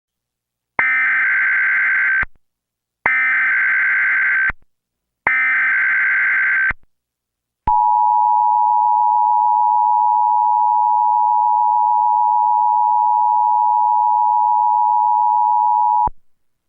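Emergency Alert System signals: three short bursts of SAME header data, each about one and a half seconds with short gaps, then the two-tone attention signal held steady for about eight seconds before it cuts off sharply. This sequence marks the start of an alert broadcast, here a tornado warning.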